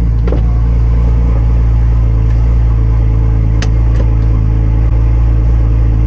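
A car engine idling steadily, an even low rumble, with a few faint clicks over it.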